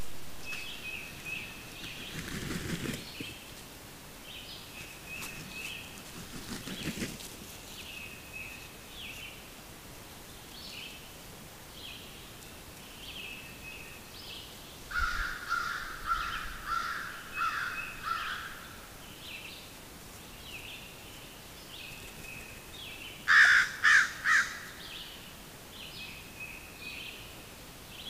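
Outdoor birdsong: a songbird repeats a short, high phrase over and over. Midway comes a run of louder, lower calls, and near the end a crow caws loudly three or four times. Two low, rustling whooshes come in the first seven seconds.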